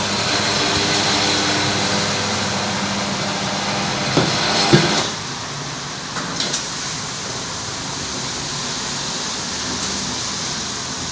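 Tyre-changing machine running as a new tyre is mounted on a wheel rim: a steady motor whine for about five seconds, a few sharp knocks near the end of that, then a quieter steady hum and hiss.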